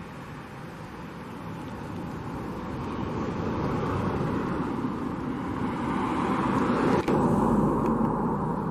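The two rear-mounted Rolls-Royce BR710 turbofans of a Bombardier Global 6000 business jet at taxi power: a steady whine over the rush of jet noise. It grows louder as the jet turns and points its exhausts toward the listener, and it is loudest near the end. The sound cuts out for an instant about seven seconds in.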